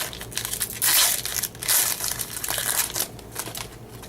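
Plastic wrapper of a baseball card pack crinkling as it is torn open and crumpled, in irregular bursts, loudest about a second in.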